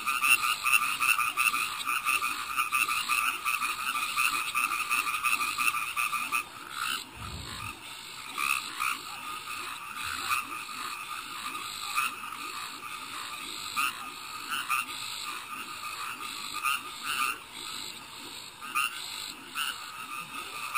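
A chorus of frogs and toads calling after rain: a dense, fast pulsing chorus that thins out about six seconds in to separate, spaced calls.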